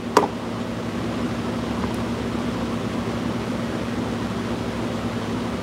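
Steady mechanical hum with a low droning tone, with one short click just after the start.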